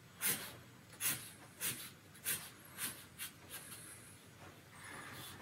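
Black Sharpie marker tip scratching across drawing paper in a run of quick short strokes, hatching a shadow: about seven strokes, roughly two a second, that trail off after about four seconds.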